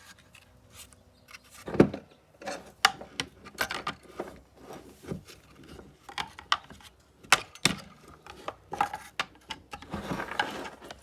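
Irregular clicks, light knocks and scraping of hand tools working at the parts of a partly dismantled Bosch hammer drill while the greasy stator is being worked loose. One knock about two seconds in is louder than the rest, and there is some rubbing near the end.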